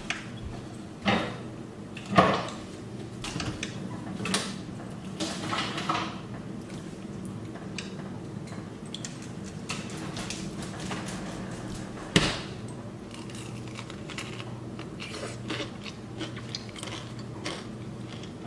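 A few scattered knocks and clatters of objects being handled, the loudest about a second in, about two seconds in and about twelve seconds in, over a steady low hum.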